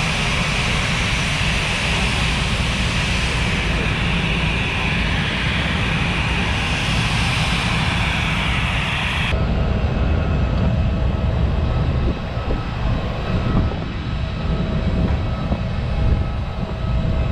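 Jet airliner noise on an airport apron: a steady high whine over a low rumble. The whine cuts off abruptly about nine seconds in, leaving the rumble.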